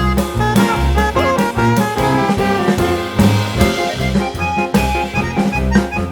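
Background instrumental music with a steady beat and a moving bass line.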